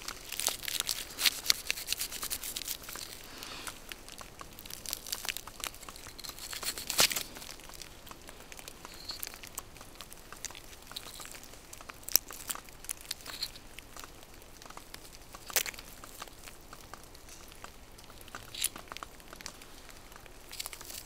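Close handling sounds of velvet shank mushrooms being picked from a snowy tree trunk: scattered crackles, snaps and crinkling of bark and dry grass stems, busiest in the first few seconds, then stems trimmed with a knife near the end.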